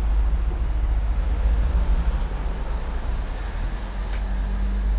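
Road traffic on a town street: vehicle engines running with a steady low rumble.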